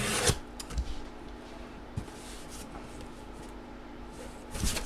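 Cardboard box and packaging being handled and opened. There is a rustle at the start, a few light knocks, and another rustle near the end.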